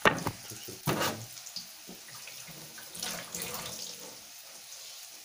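Instant noodles frying in oil in a wok: a steady sizzle, with two sharp knocks, one at the start and one about a second in.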